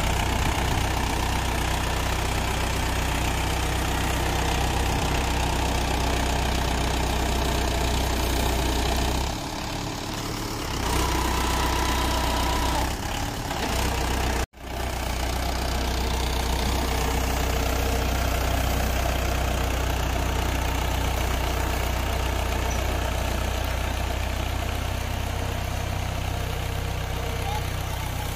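Mahindra 575 DI tractor's four-cylinder diesel engine running steadily as the tractor, bogged in deep sand, works to pull free with its rear wheels digging in. The engine sound dips for a couple of seconds about a third of the way in and breaks off for an instant about halfway.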